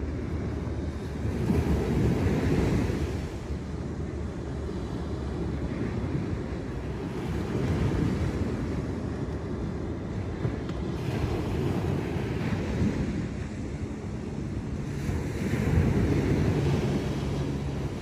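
Waves breaking and washing up a beach, swelling and easing every few seconds, with wind rumbling on the microphone.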